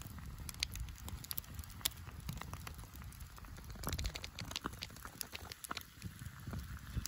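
Wood campfire crackling, with many irregular sharp pops and snaps over a low rumble.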